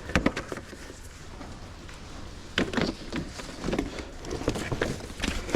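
Plastic resin shed panels being handled and shifted about: scattered knocks and clatters of hollow plastic, several near the start and more in the second half.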